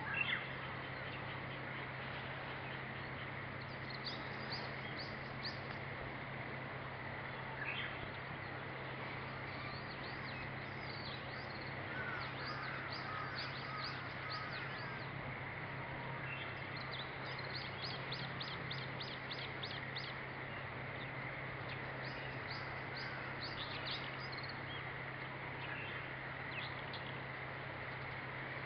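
Japanese bush warbler (uguisu) calling: several runs of fast, sharp repeated high notes, each lasting a few seconds, over a steady low hum.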